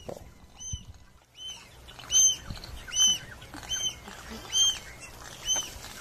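Swallow-tailed gull calling: a short, high, arched note repeated about eight times, roughly once every 0.8 s, over a faint hiss.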